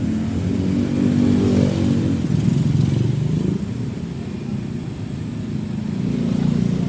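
Motorcycle engine running in slow traffic, its pitch rising and falling with the throttle.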